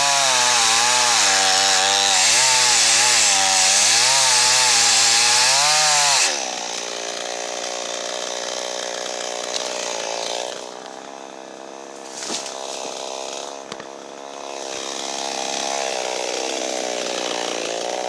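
Two-stroke chainsaw cutting into dead ash at full throttle, the engine pitch wavering under load. About six seconds in it drops to a lower, steadier run that sags quieter for a few seconds in the middle, with the tank nearly out of fuel.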